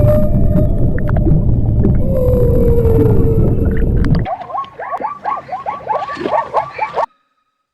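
Animal calls: a loud, low, rough sound for about four seconds, then a quick run of short calls that rise and fall in pitch, several a second, which stops abruptly.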